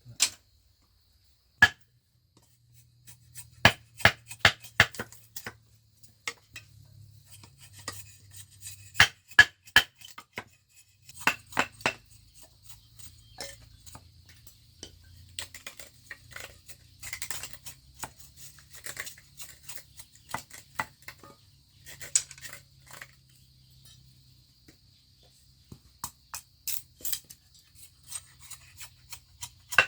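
Irregular sharp knocks and clinks of hard objects being handled, some coming in quick runs of several strokes, with a few louder strikes.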